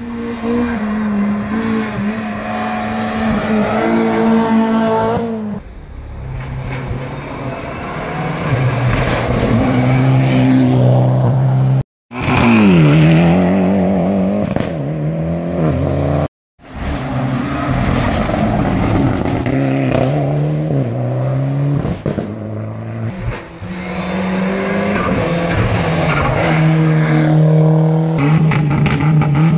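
Rally car engines at full throttle, climbing in pitch and stepping up through the gears, heard in several short clips cut together. Just after the first cut an engine revs sharply up and down.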